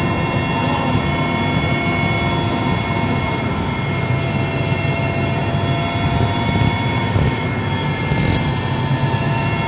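Aircraft cabin noise: a steady engine drone with several steady whining tones over it, heard from inside the cabin. There is a brief hiss about eight seconds in.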